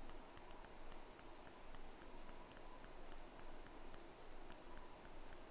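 Quiet room tone: a faint steady hiss with a faint thin tone and light, rapid ticking, with no distinct event.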